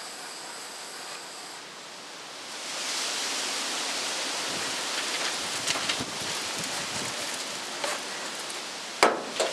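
Wind rising about two and a half seconds in to a steady rushing hiss, with a few faint crackles and then two sharp knocks near the end.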